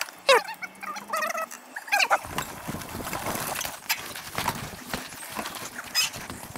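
A few short squeaky whines in the first two seconds, then a mountain bike rattling and clattering as it rides over rough ground.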